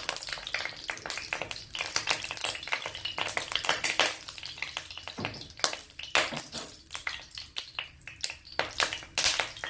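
Fenugreek seeds frying in hot oil in a wok, crackling with many irregular sharp pops.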